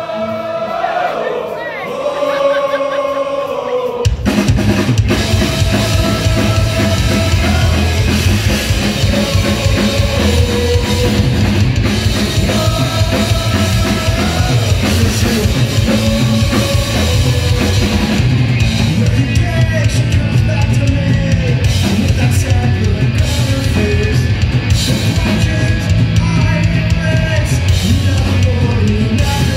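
Live punk rock band: singing with no instruments for about four seconds, then the full band comes in all at once with drums, electric guitars and bass under the lead vocal, playing at a steady fast beat.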